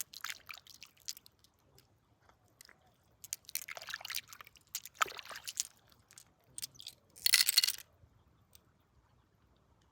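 Gravel and stones crunching in short bouts, about four in all, the loudest about seven seconds in.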